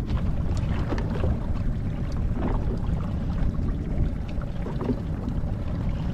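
Steady low rumble of a fishing boat at sea, with water sounds and scattered small knocks and clicks.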